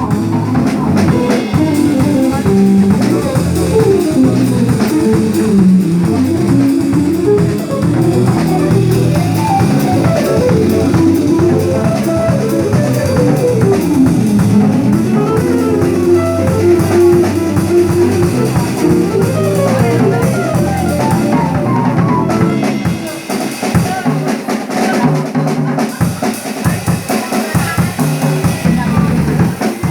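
Music played on guitar over a drum kit, with a melodic guitar line winding up and down. About two-thirds of the way through, the melody thins out and the drums carry on.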